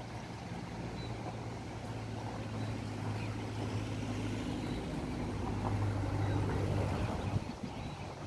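A distant engine humming steadily, growing louder about six seconds in and then fading, like a vehicle passing by.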